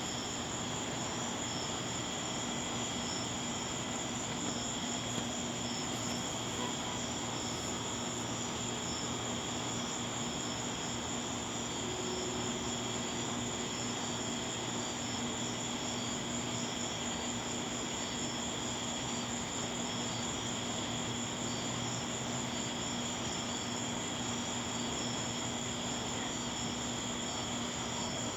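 Aircraft cabin noise in flight: the steady drone of engines and rushing air, with a few constant hums and a thin high whine that do not change.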